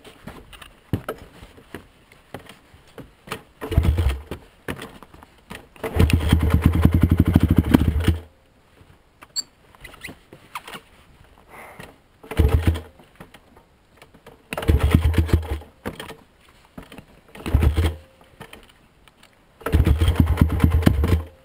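Honda TRX450R quad's single-cylinder four-stroke engine revved in six short bursts of throttle, the longest about two seconds, with quiet gaps between. The rider is trying to power the stuck quad free.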